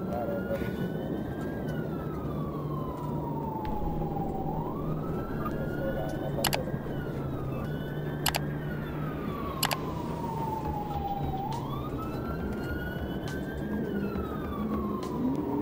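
Police siren in a slow wail, each cycle rising quickly and then falling slowly, repeating about every four seconds over the steady road and engine noise of a patrol car at highway speed. A few sharp clicks around the middle.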